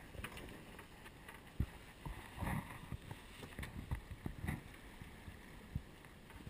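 Sailing yacht under way at sea: wind and water rushing past, with irregular low thumps and knocks, the sharpest about one and a half seconds in.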